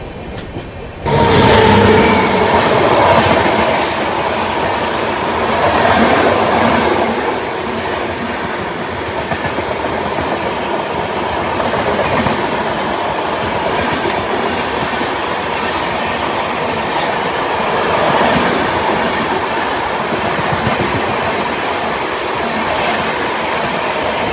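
Shatabdi Express LHB coaches passing close on the adjacent track, heard from the open door of a standing train. Steady loud rolling noise of wheels on rails with scattered clicks, starting abruptly about a second in.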